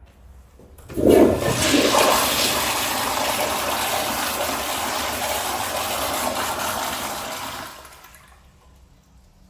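Kohler toilet flushing: a sudden loud rush of water starts about a second in, runs steadily for about seven seconds, then tapers off.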